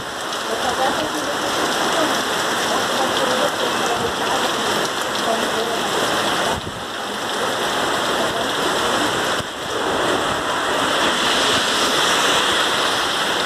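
Heavy rain falling steadily on a city street, a dense even hiss that dips briefly twice.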